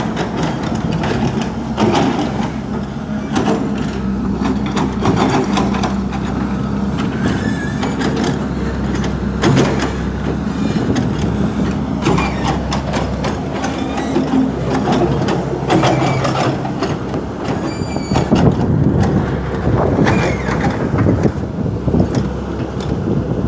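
Komatsu tracked hydraulic excavator's diesel engine running steadily, with repeated metallic clanks and knocks from the working machine and a few brief high squeals.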